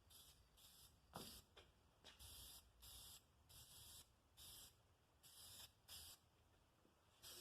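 Aerosol spray-paint can hissing in about a dozen short, irregular bursts, each a fraction of a second, with a single knock about a second in.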